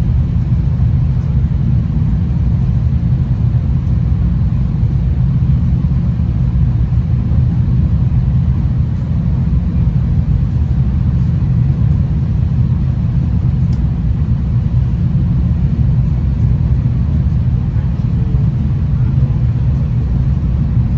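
Steady low rumble of a V/Line diesel passenger train running along the line, heard from inside the carriage.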